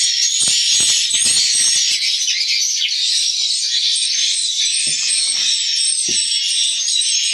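Swiftlets chirping inside a swiftlet house: a dense, continuous chatter of many high, short calls, with a few low knocks from handling about 5 and 6 seconds in.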